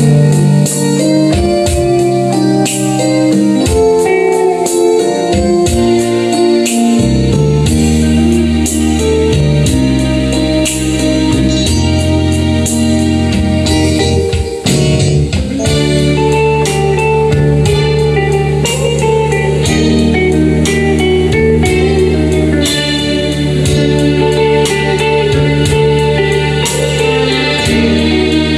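Live band playing an instrumental passage of Assyrian music: organ-toned keyboard chords, drum kit and electric guitar. The music starts abruptly, and a low bass line comes in about seven seconds in.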